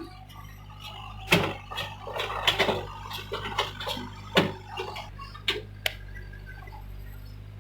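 Hyundai excavator's diesel engine running steadily with a low hum, with a few sharp knocks and clinks every second or so.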